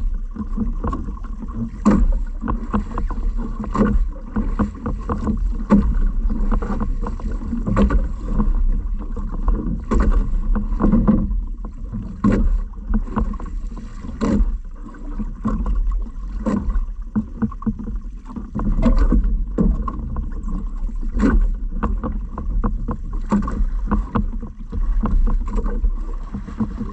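Small boat on the water: irregular splashes and knocks of water against the hull, over a steady low rumble.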